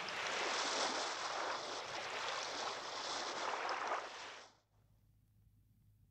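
Wind and sea surf: a steady rushing noise that fades out about four and a half seconds in, leaving only a faint low hum.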